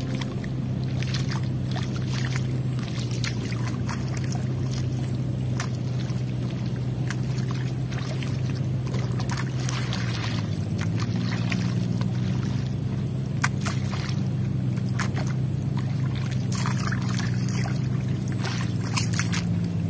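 A small engine drones steadily, its pitch shifting slightly about ten seconds in, while wet mud and water splash and squelch with short sharp splats as hands shape a flooded paddy seedbed.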